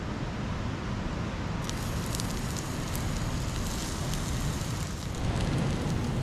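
Crackling and popping from an open cooking fire, with scattered sharp crackles starting about a second and a half in, over a steady rumble of surf and wind.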